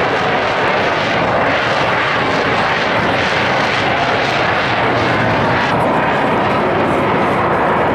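Loud, steady jet noise from a military jet aircraft flying past, its high hiss thinning out about six seconds in.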